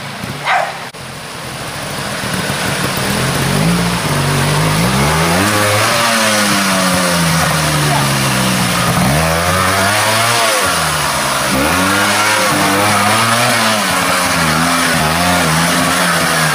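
Trials motorcycle engine revving up and down over and over, in short bursts of throttle, as the bike picks its way up a rocky stream bed, with a steady hiss of rushing water underneath.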